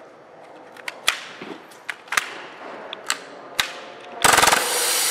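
Action Army AAP-01 gas blowback airsoft pistol: several sharp metallic clicks and clacks as its slide is worked by hand to free a nozzle stuck forward. About four seconds in it suddenly fires a loud, very rapid full-auto burst, a runaway the shooter could not stop, the sign that the pistol is broken.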